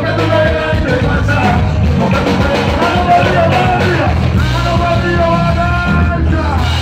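Live concert music: a man sings lead into a microphone over the band's backing through the PA, with a steady heavy bass line.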